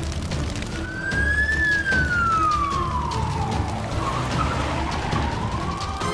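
A siren wailing in one slow sweep: it rises slightly, falls slowly in pitch, then climbs again near the end, over background music.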